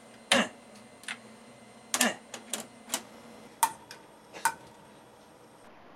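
A run of sharp, irregular clicks and taps, about nine in four and a half seconds. Two of them, near the middle, are each followed by a short steady tone.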